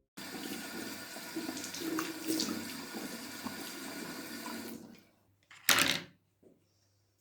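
Water running from a tap into a sink, stopping after about five seconds, followed by a short, loud burst of noise.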